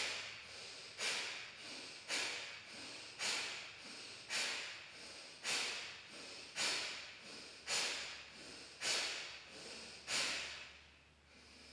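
Kapalbhati breathing through the left nostril alone: ten forceful, sharp exhalations pumped out through the nose, about one a second, each starting suddenly and fading away.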